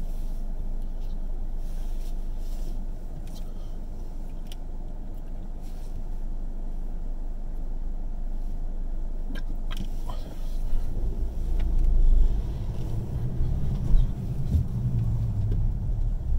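A car idling in traffic with a low steady hum. About ten seconds in, a louder engine and road rumble starts as the car pulls away.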